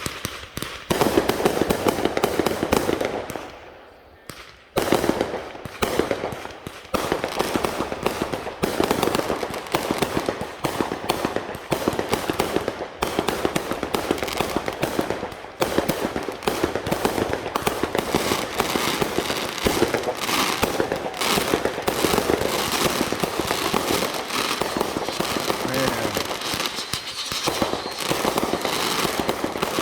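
Fireworks going off in a rapid, nearly continuous string of pops and bangs, with a brief lull about three to four seconds in before the crackling resumes and keeps going.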